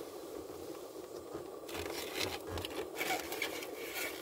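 A fork scraping and clicking irregularly in a takeout food container, starting about a third of the way in, over a steady hum inside a car cabin.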